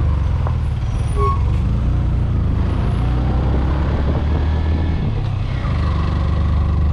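Motorcycle engine running under way on a ride, a steady low engine note that drops and picks up again a little before six seconds in.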